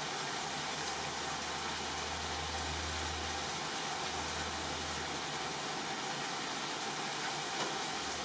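Steady sizzling of chicken pieces frying in a pan, with a low hum that fades out about five seconds in.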